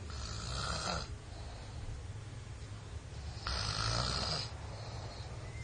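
A person snoring loudly, two rasping snores about three and a half seconds apart, each lasting about a second.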